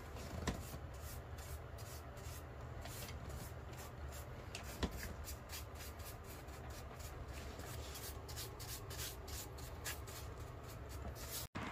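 Paintbrush bristles scraping over bare wood as clear water-based gloss varnish is brushed on: a run of short, scratchy strokes that quicken to about three or four a second in the second half, with two light knocks near the start.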